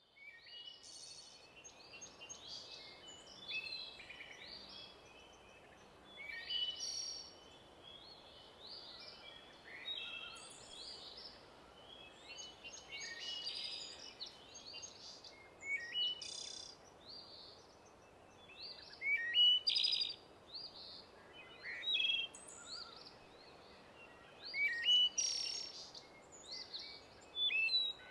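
Several birds singing and calling over a faint steady background hiss: a busy, overlapping run of high chirps and short song phrases that starts suddenly.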